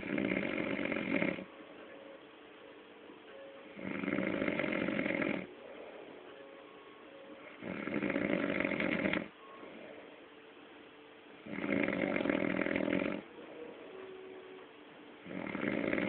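A man snoring: a loud snore of about a second and a half, repeating regularly about every four seconds, with quieter stretches between.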